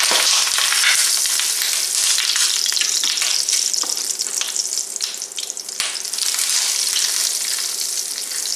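Flour-dredged cube steaks sizzling in hot vegetable oil in a braising skillet. The sizzle starts suddenly as the first steak goes in, with a few clicks of metal tongs against the pan.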